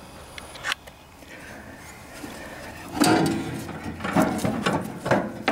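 Old drive belt of an MTD Signature 2000 riding mower being pulled out by hand, dragging and scraping against the pulleys and steel brackets. A single click comes just under a second in, and from about three seconds in there is a stretch of rubbing and scraping with several sharp knocks.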